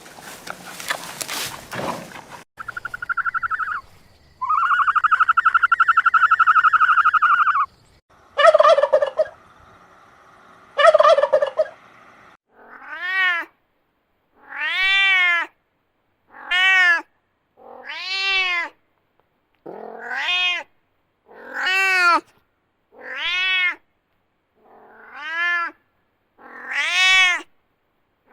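A run of calls from several different animals in turn: a long held call, then two short harsh calls. It ends in about ten short repeated calls, each rising then falling in pitch, one every second and a half to two seconds.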